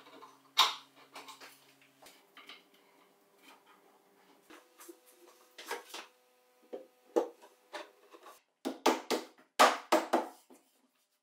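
Hand-work on a plywood workbench carcass: scattered light clicks and knocks of wooden parts and metal bar clamps being handled, then a run of louder wooden knocks near the end.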